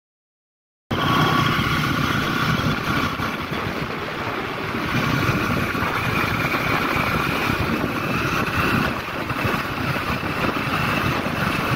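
Steady engine and road noise of a moving vehicle, heard from on board, starting abruptly about a second in.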